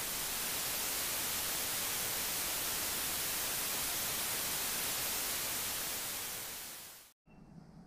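Television static: a steady hiss of white noise, the sound of a lost broadcast signal. It fades and cuts to silence about seven seconds in.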